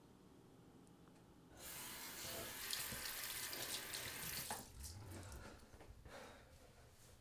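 Bathroom sink tap running as water pours into the basin. It starts about a second and a half in, then is shut off with a click about three seconds later, leaving a short, quieter tail of water.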